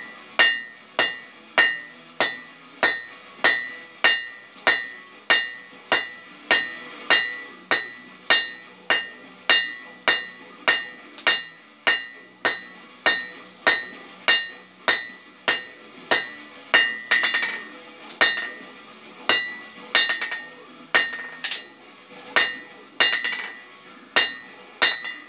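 Hand hammer striking a red-hot steel bar on an anvil in a steady rhythm, about one blow every two-thirds of a second, each blow ringing brightly off the anvil. Later on a few blows come in quick pairs.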